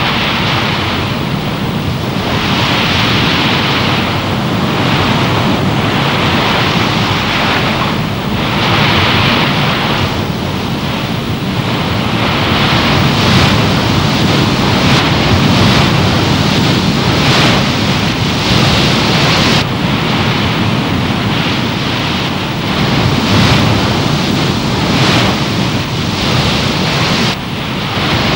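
Sea wash and wind rushing, a loud steady noise that swells and eases irregularly every couple of seconds.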